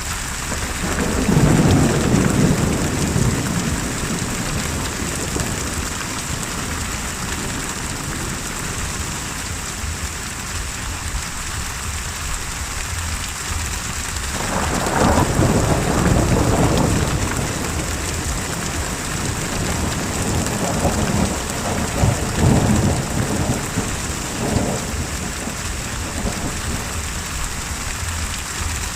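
Steady rain hissing, with rolls of thunder: one about a second in, a longer one about halfway through, and a few shorter rumbles a few seconds after that.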